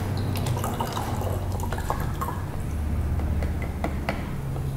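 Distilled water poured from a graduated cylinder through a plastic funnel into a plastic water bottle: a steady trickle with small drips as the bottle fills. A low steady hum runs underneath.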